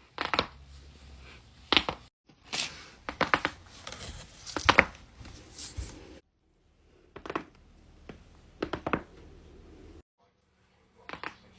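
Joints cracking during chiropractic adjustments: a series of sharp pops and cracks, some single and some in quick clusters of two or three.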